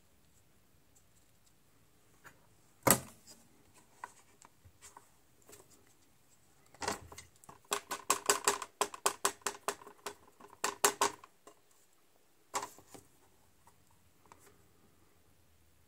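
Ink pad tapped quickly and repeatedly onto a rubber stamp to ink it, a run of small clacking taps lasting about four seconds in the middle, with a single sharp click a few seconds before and another just after.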